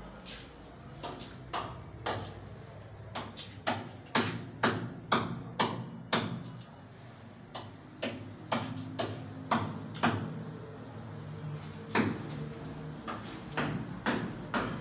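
A series of sharp knocks, about two a second and loudest a few seconds in, like hard footsteps on a tiled floor.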